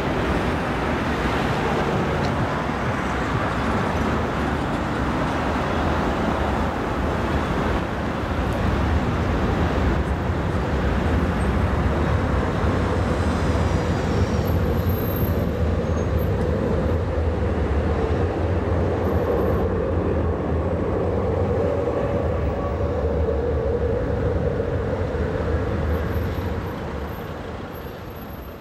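A tram running past on its rails: a steady rumble that swells a little as it draws near and fades away near the end, over continuous street noise.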